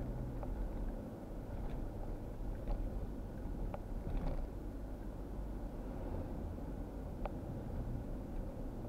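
Steady low engine and tyre rumble of a car driving along a paved road, heard from inside the cabin, with several light ticks scattered through it.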